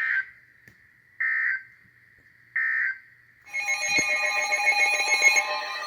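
Three short buzzy data bursts about 1.3 s apart from a NOAA Weather Radio broadcast: the SAME end-of-message code that closes the warning just read. About three and a half seconds in, several weather radios' alert alarms start up together in a loud mix of many beeping tones.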